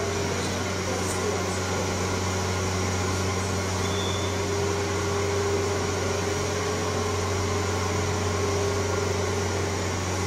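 Steady low mechanical hum with a faint, even higher tone above it, unchanging throughout.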